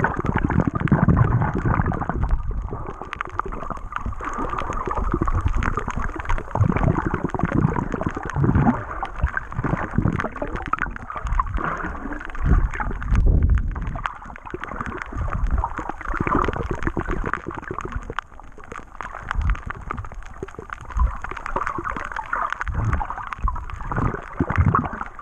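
Water sloshing and gurgling against an underwater camera as the snorkeler swims, heard muffled, in irregular low surges, with a faint steady high-pitched whine.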